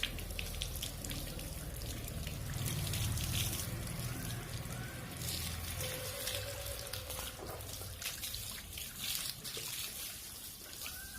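Water pouring, trickling and splashing while a dog is bathed.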